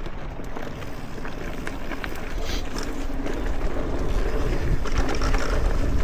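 Mountain bike rolling down a dirt trail: tyre noise and scattered rattles and clicks from the bike, with wind rumbling on the microphone that grows louder.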